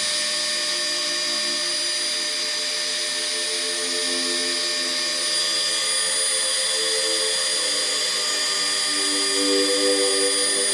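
CNC router at work: the spindle's steady high whine, with the stepper motors' tones shifting in pitch in steps as the axes move the cutter.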